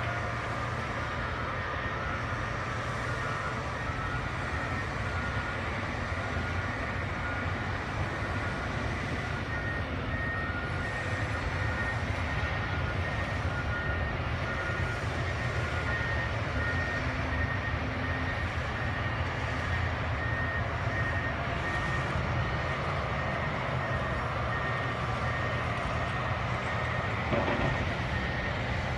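Komatsu crawler bulldozers' diesel engines running under load as they push dirt. Backup alarms beep steadily at two different pitches: one through the first half, a higher one from about ten seconds in, as the dozers reverse.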